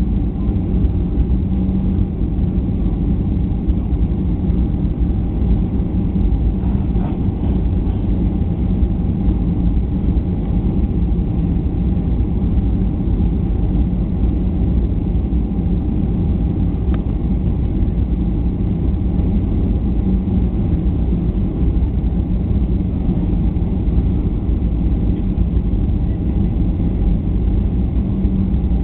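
Steady jet airliner cabin noise on final approach, heard from a window seat over the wing: engine and airflow rumble with a steady low hum, unchanging throughout.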